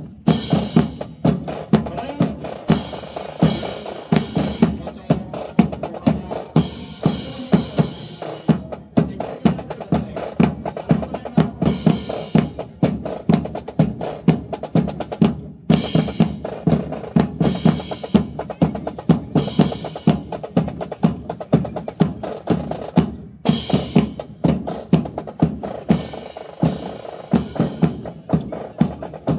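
Snare and bass drums beating a steady marching cadence, with sharp crashes every few seconds and a brief break about halfway through.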